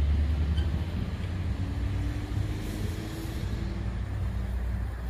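Low steady rumble that eases off during the first second, with a faint hum through the middle.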